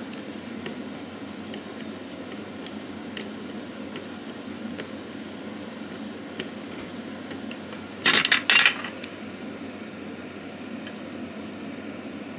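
Faint ticks of a precision screwdriver working small Torx screws in a folding knife's handle, over a steady hum. About eight seconds in, a quick cluster of loud metallic clinks as small metal parts clatter on a metal tray.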